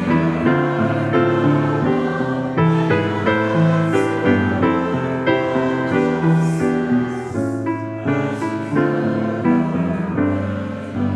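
Piano music, a steady run of sustained chords and melody notes.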